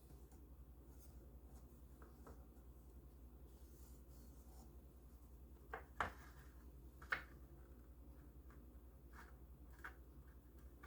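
Near silence with a few light clicks and soft rubbing as styrene plastic pieces are handled and pressed together while being glued, two clicks standing out near the middle.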